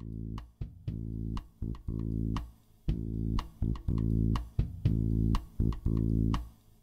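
Intro music: a low, bass-heavy riff in short stop-start phrases, with sharp percussive hits between the notes.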